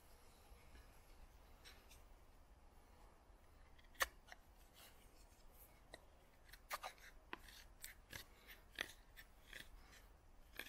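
Joker Nessmuk knife blade cutting into wood, faintly: a sharp crack about four seconds in, then a quick run of short cutting and scraping strokes in the second half.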